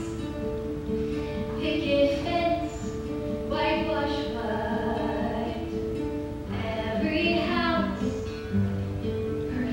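Female vocals singing a musical-theatre ballad with held notes over sustained instrumental accompaniment; new sung phrases swell in a couple of times, once near the middle.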